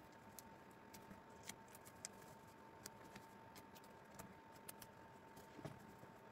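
Near silence with faint, scattered light clicks and taps from hands handling rayon fabric stretched over a board, over a faint steady hum.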